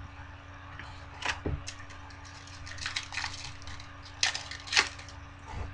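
Foil wrapper of a trading-card pack crinkling and tearing open in several short bursts, the loudest two close together near the end.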